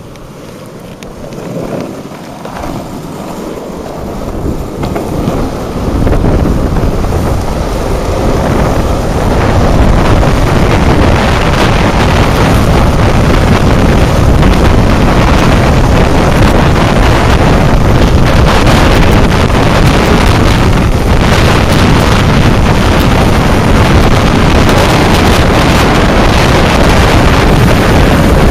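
Wind rushing over the microphone of a camera carried by a downhill longboarder, mixed with the roll of the board's wheels on asphalt. It builds over the first six seconds or so as speed rises, then holds as a steady loud rush.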